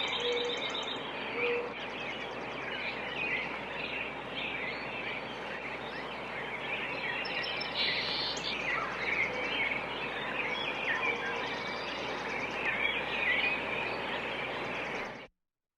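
A chorus of songbirds chirping and calling over a steady outdoor background hiss, with a high rapid trill heard twice. The recording cuts off suddenly near the end.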